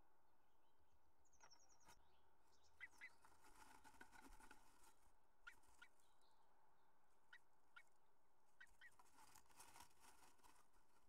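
Faint rustling and scratching of a female bluebird shifting twigs and grass in its nest inside a nest box, with a few short, faint high notes.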